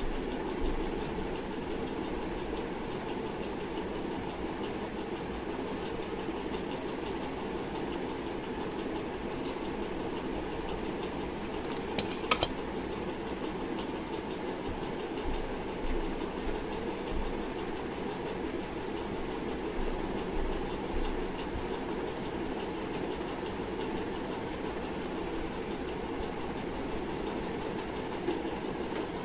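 Steady mechanical hum of a small motor running, with one sharp click about twelve seconds in.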